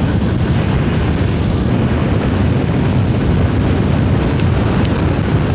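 Steady wind rushing over the microphone of a phone held out on a moving motorcycle, with the bike's engine and road noise underneath.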